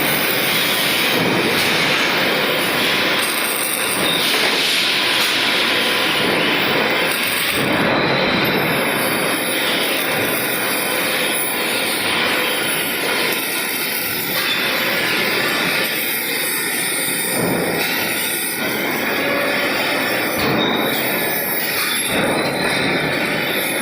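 Continuous loud industrial noise from a robotic welding line: a steady dense hiss and clatter with a couple of faint steady whining tones running through it.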